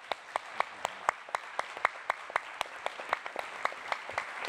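Audience applauding, with one person's claps close to the microphone standing out sharply at about four a second.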